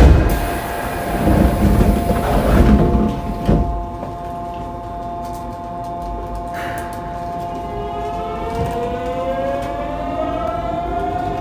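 A loud thump at the start, then a few seconds of rumble, as the train stands with its doors closing. About eight seconds in, the Mitsubishi GTO-VVVF traction inverter of the Yokohama Subway 3000A starts up as the train pulls away: a whine of several tones rising together in pitch, sounding like a siren.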